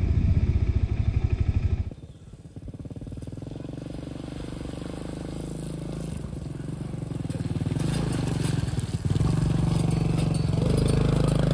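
Motorcycle engine running while riding, loud for about two seconds, then dropping suddenly and slowly building again as the ride goes on.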